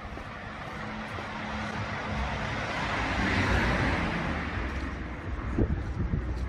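A car passing along the street: its tyre and engine noise swells to a peak about halfway through, then fades away.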